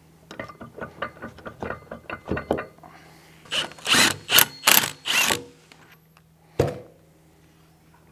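A cordless power tool runs in four short trigger bursts, driving a puller's threaded bolt to press the spindle out of a tractor final-drive housing. Before the bursts there is a run of light metal knocks, and a single thump comes about six and a half seconds in.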